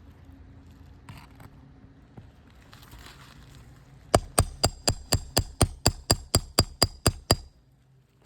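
A hammer striking metal in a quick run of about fourteen blows, about four a second, each with a short metallic ring. The run starts about four seconds in and stops abruptly; faint scraping comes before it.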